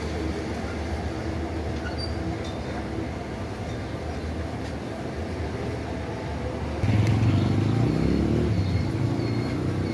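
Street traffic noise, with a vehicle engine growing louder about seven seconds in.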